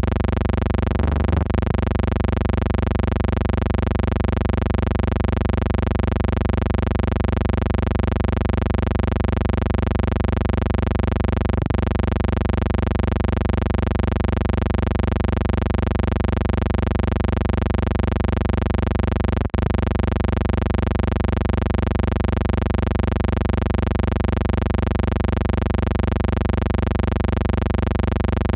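Steady electrical hum with many even overtones, unchanging throughout, broken by three brief clicks or dropouts: near the start, about 12 seconds in and about 19 seconds in.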